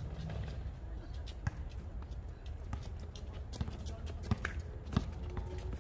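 Outdoor basketball game: a basketball bouncing and players' shoes striking the hard court give irregular thuds and slaps, over a steady low rumble with faint distant voices of players.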